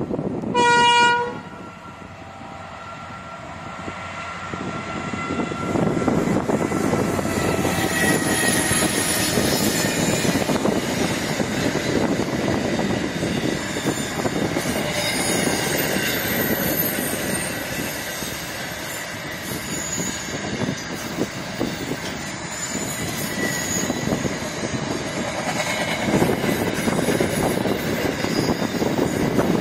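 A freight train's horn sounds one short blast about half a second in. Then the container freight train approaches and runs past with a steady loud rumble and clatter of its wagons. Short high wheel squeals come and go over the noise.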